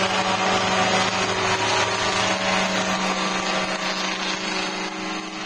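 Engine and rotors of a radio-controlled crop-spraying helicopter running with a steady, high drone, growing fainter near the end.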